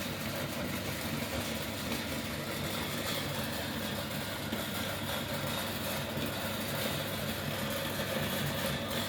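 Electric meat grinder running steadily under load as it grinds roasted chickpeas (parched grams), a continuous motor hum with grinding noise over it.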